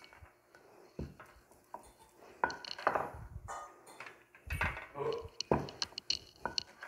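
Scattered light knocks and clinks of dough being worked: a wooden rolling pin rolling and tapping on a marble board, and small rolled dough rounds set down on a metal tray.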